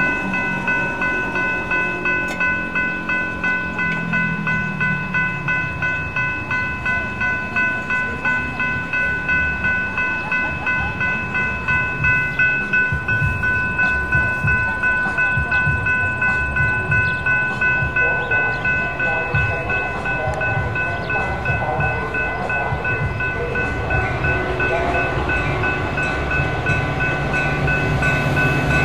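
Railroad grade-crossing bell ringing steadily in a quick, even rhythm while the gates are down. Near the end a Metra EMD F40PH-3 diesel locomotive's engine rumble grows louder as the train approaches.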